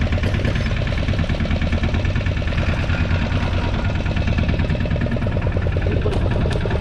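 Fishing boat's engine idling steadily with an even, rapid pulse.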